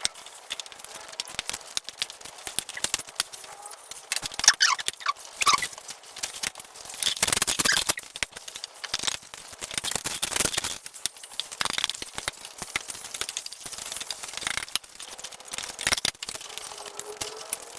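Close-up eating sounds: chewing and mouth smacking with irregular wet clicks and crackles, busiest in the middle.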